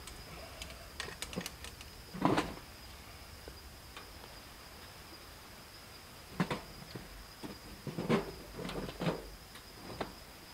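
Scattered sharp clicks and knocks, loudest about two seconds in and again between six and nine seconds, over a faint steady high-pitched tone.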